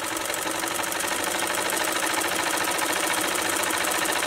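Singer sewing machine stitching cloth, its needle mechanism running with a fast, steady clatter that swells slightly at first and then holds even.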